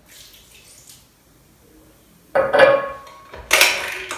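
Sparkling water poured from a drinking glass into a stainless steel mixing bowl with a faint hiss. Then two loud clinks about a second apart, as the glass knocks against the metal bowl and is set down on a hard worktop, each ringing briefly.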